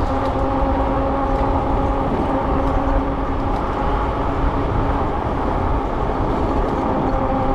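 Riding an e-bike: wind rushing over the microphone with a steady whine from the bike's electric motor.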